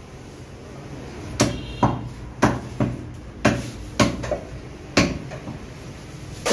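Meat cleaver chopping beef on a wooden chopping block: about eight sharp chops, roughly two a second, beginning about a second and a half in.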